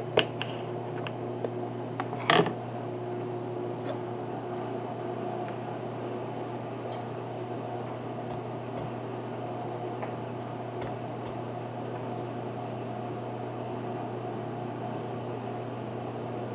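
A steady hum from a kitchen appliance running, with a sharp knock about two seconds in.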